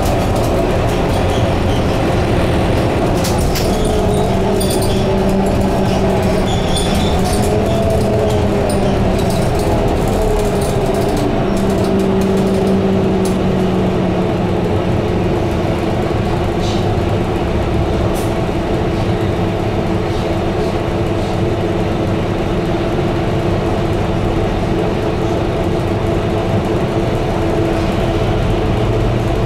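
Interior sound of a Scania K230UB single-deck-chassis double-decker bus on the move: the engine and drivetrain running with road rumble under the floor. A whine climbs in pitch as the bus gathers speed, drops again, then holds at a steady pitch, with occasional small rattles from the cabin fittings.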